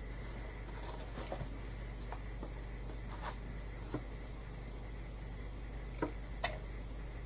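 Faint handling sounds of a hot glue gun and feathers being worked by hand: scattered small clicks and rustles, the sharpest two about six seconds in, over a steady low hum.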